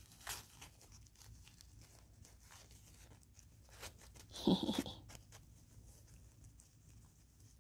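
Tissue paper crinkling and rustling faintly as a Welsh corgi puppy chews and paws at it, with one short puppy vocal sound about four and a half seconds in.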